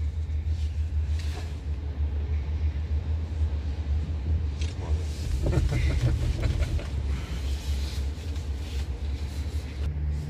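Steady low rumble of a chairlift ride, with scattered clicks and rattles that are densest about five and a half to seven seconds in.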